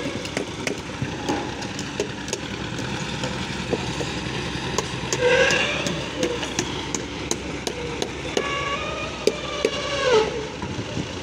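Construction-site din: scattered sharp knocks of hand tools striking wood and earth over a steady machinery drone. Two drawn-out wavering pitched tones rise over it, one about five seconds in and a louder one near the end.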